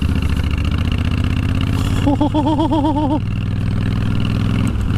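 Honda VTX1300 V-twin motorcycle engine running steadily while riding. A brief wavering tone sounds over it about two seconds in.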